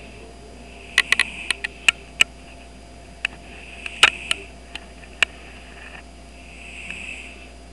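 Sleeping domestic cat snoring through its nose: three airy, hissing breaths a few seconds apart. Sharp clicks and taps sound in between, the loudest about four seconds in.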